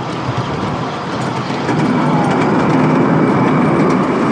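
Ride-on miniature railway train running along its track: a steady rumble of wheels on rail, growing louder about a second and a half in.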